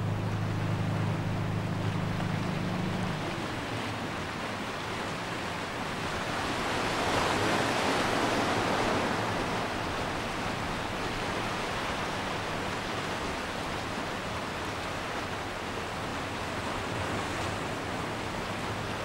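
Sea surf washing, a steady rushing that swells for a few seconds in the middle. For the first three seconds a low steady hum sits beneath it and then stops.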